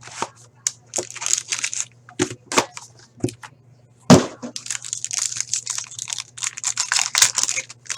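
Plastic wrapping being torn off and crinkled and a sealed trading-card box being opened by hand, in a run of irregular rustles with a sharp crack about four seconds in. A faint steady electrical hum runs underneath.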